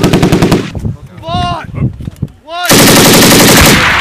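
Belt-fed 7.62 mm M240 machine gun firing bursts. One rapid, even burst ends under a second in; after a short pause, a louder, denser burst about a second long comes near the end.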